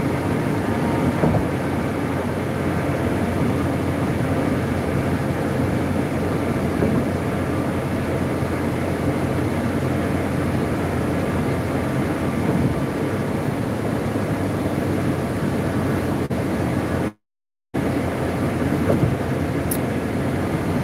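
Steady road and engine noise inside a van's cabin at highway speed. The audio cuts out to silence for about half a second roughly seventeen seconds in, a livestream dropout.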